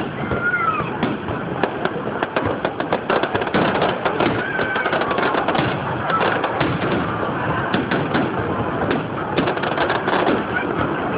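Fireworks display going off: a dense run of sharp pops and bangs, several a second and busiest about three seconds in, over a steady background hubbub.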